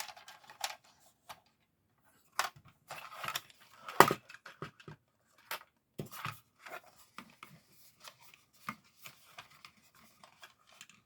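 Small hard-plastic toy pieces being handled: irregular clicks, taps and short scrapes as a tiny figure and vehicle are pushed into a folding plastic playset, with one sharper click about four seconds in.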